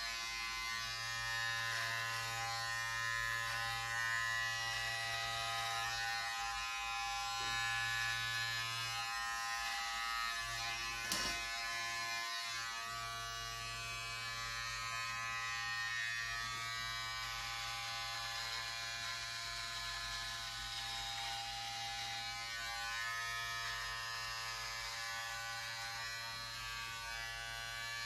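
Electric hair clippers running at a steady, even pitch, with a short click about eleven seconds in.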